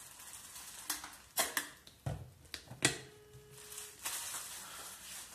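Plastic water bottle being handled and squeezed: a run of sharp crackles and clicks through the middle, with a dull thump about two seconds in, then softer crinkling.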